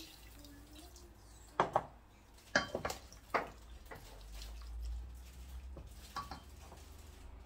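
Water poured from a saucepan into a pot of goat meat, then a wooden spoon stirring the meat and knocking sharply against the metal pot several times, with one more light knock near the end.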